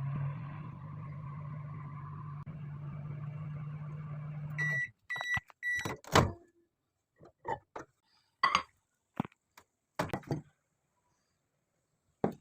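Microwave oven running with a steady low hum, which stops about five seconds in, followed by three short high beeps signalling the end of the cooking cycle. Then a loud click and a run of scattered clicks and knocks.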